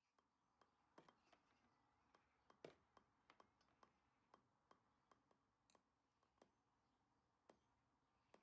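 Faint, irregular light clicks and taps, one or two a second, over quiet room tone.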